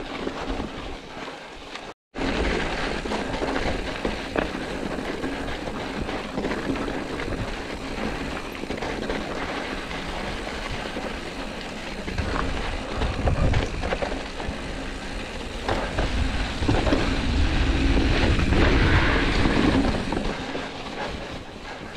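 Mountain bike rolling over a rough, rocky gravel trail: the tyres run over loose stones and the bike rattles, with scattered small knocks. The sound cuts out for a moment about two seconds in and grows louder and rumbling near the end.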